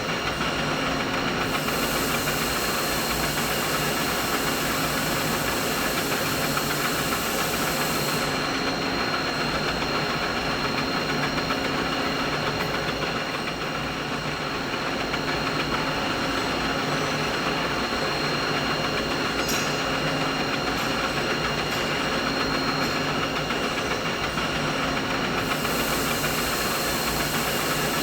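Steady, dense machinery hum with a constant high whine running through it, played as a mid-frequency masking sound. A high hiss joins for several seconds a couple of seconds in, and again near the end.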